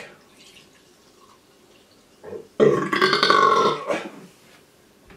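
Carbonated energy drink poured quietly from a can into a glass. About two and a half seconds in, a man burps loudly for over a second.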